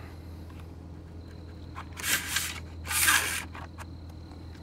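Manual rear-door sunshade of a BMW E39 M5 being pulled up out of the door panel: two short scraping swishes about a second apart, roughly two and three seconds in.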